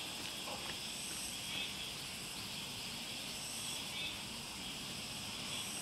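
Steady rural outdoor ambience: a high, even insect drone, with a faint chirp every couple of seconds, over a low hiss.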